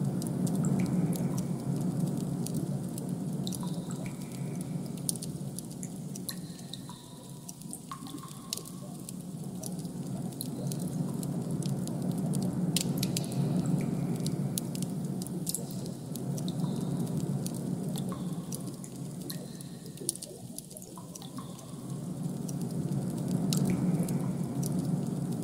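Designed ambient soundscape: a low droning hum that swells and fades in slow waves about every ten seconds, with scattered sharp, drip-like clicks and a few brief higher tones over it.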